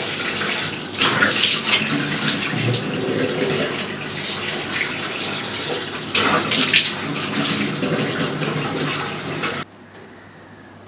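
Tap running into a sink while water is splashed onto the face, with louder splashing about a second in and again about six seconds in. The water sound stops abruptly near the end.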